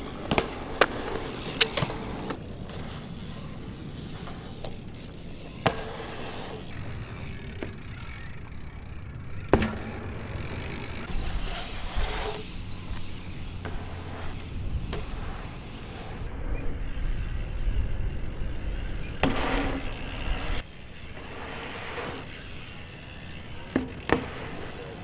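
BMX bike rolling over concrete skatepark ramps: a rushing tyre noise broken by several sharp knocks. The sound changes abruptly every few seconds.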